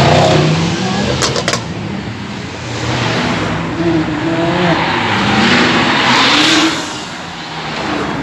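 Sports cars and supercars driving past one after another, their engines revving up and down as each one comes by, with the sound swelling twice as cars pass close.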